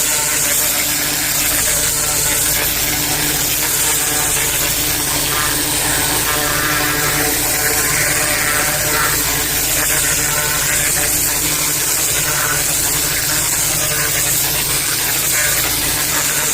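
Pressure washer running steadily, its motor and pump humming under the constant hiss of the high-pressure water jet on block paving.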